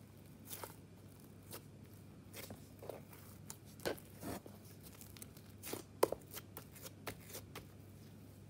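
Hands squeezing and kneading slime, making irregular sticky clicks and small pops as it is pressed and pulled apart, the loudest about six seconds in.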